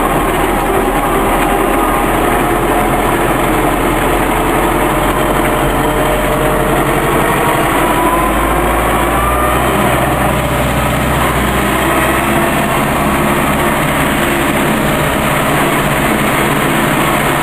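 An MTZ (Belarus) tractor's diesel engine running steadily under way on a dirt track, heard from the driver's seat with the cab rattling along.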